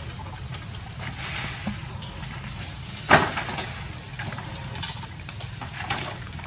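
Leaves and branches rustling as monkeys climb through them, with one sharp thump about three seconds in, over a steady low rumble.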